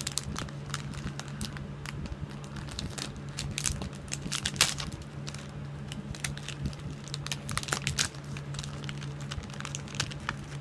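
Plastic wrapper of a packaged brownie bar crinkling and crackling in irregular bursts as it is worked open by hand, over a steady low hum.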